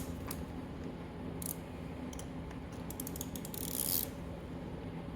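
Ratchet with an 8 mm socket loosening the oil filter cover bolts on a Yamaha WR250R motorcycle: a few separate clicks, a quick run of ratchet clicks about three seconds in, then a short scraping rustle, over a steady low hum.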